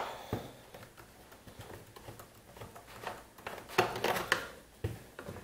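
Light handling noise from a hedge trimmer's plastic housing and metal blade: scattered faint clicks and scrapes, with a few sharper clicks about four seconds in.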